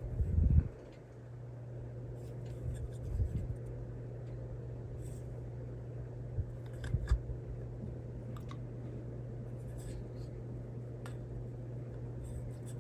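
Small parts and hand tools being handled while working on an RC truck: light clicks and scratching, with a few low bumps about half a second in, around three seconds and around seven seconds, over a steady low hum.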